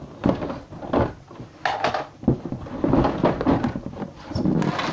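Irregular knocks, bumps and scraping clatter of objects being handled.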